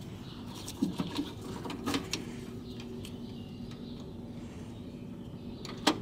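Plastic interior door handle and lock assembly being handled against the car door's sheet metal: a few scattered light clicks and knocks, with one sharp click near the end, over a steady low hum.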